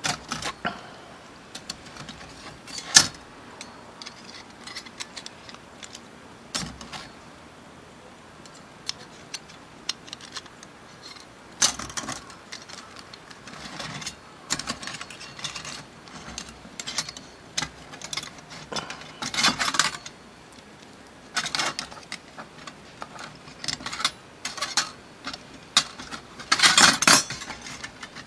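Light metal parts of a small folding mini fire pit clinking and clattering as they are handled. Irregular sharp clicks and short clatters, with a few louder bursts, the longest near the end.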